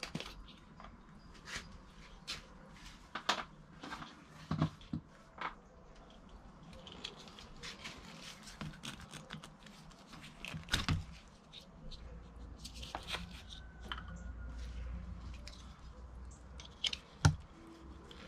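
Hands handling a plastic Konnwei OBD adapter and its coiled cable and connector: scattered plastic clicks, taps and rustles, with the sharpest clicks about two-thirds of the way through and near the end.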